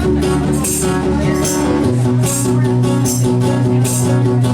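A rock trio playing live: a strummed guitar to the fore over held low notes that change about two seconds in, with regular bright strokes on the beat.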